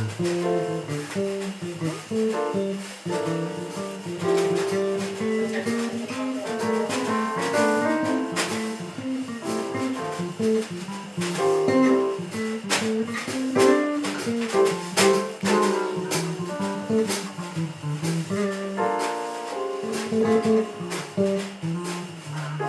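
Small live band playing an instrumental, with electric bass, keyboard and drums.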